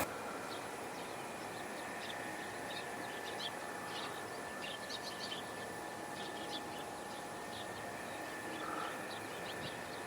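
Faint birdsong: many short, high chirps from small birds over a steady outdoor hiss.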